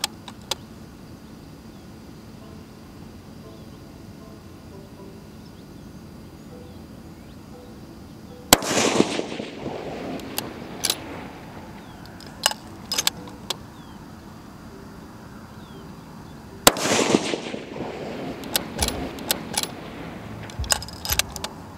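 Two shots from a bolt-action precision rifle, about eight seconds apart, each followed by a rolling echo that dies away over a second or two, with several short sharp clicks after each shot.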